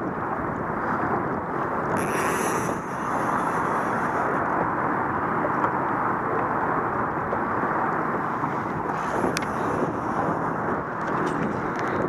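Steady wind rumble buffeting the camera microphone on an open boat.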